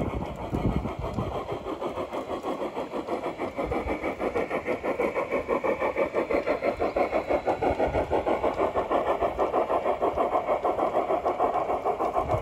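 Bachmann large-scale narrow-gauge model steam locomotive chuffing in an even rhythm of about four beats a second as it runs past, growing louder over the first few seconds as it draws near.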